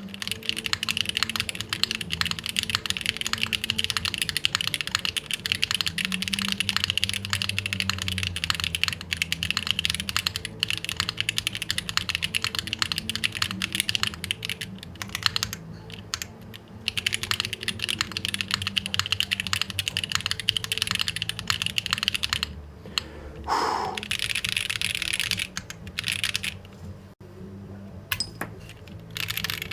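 Typing on a custom 60% mechanical keyboard (Mode Tempo prototype with a copper plate, linear CK x Haimu Pastel Peach switches and GMK keycaps): fast, dense keystrokes with a few brief pauses. Some resonance rings along with the keystrokes, which the builder believes comes from the copper plate.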